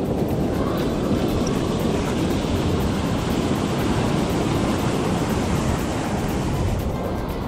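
Wind buffeting the microphone over surf breaking and washing up the beach, a steady even noise heaviest in the low end.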